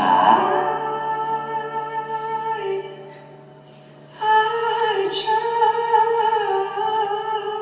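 Live band music: long, wordless held vocal notes over plucked strings, in two phrases with a softer dip around the middle.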